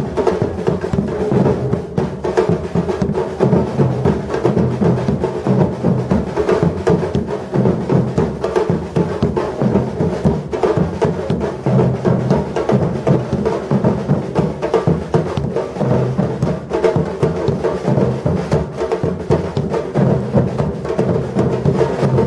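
Batucada percussion band playing a dense, steady drum rhythm, the samba-reggae style of street carnival drumming, with deep bass drums under sharper hand percussion.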